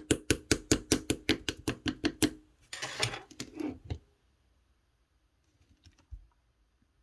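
Clear slime being worked by hand: a fast run of crisp clicks, about five a second, for the first two seconds, then a short squish.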